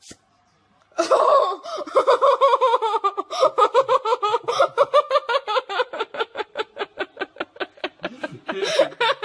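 A young woman laughing hard and without a break from about a second in, in quick pulses of about five a second.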